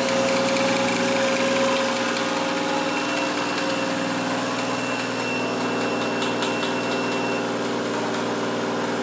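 Toyota 1JZ-GTE turbo straight-six idling with a hard knock that started when it was fired up. Oil pressure is normal, and the owner fears a connecting-rod knock.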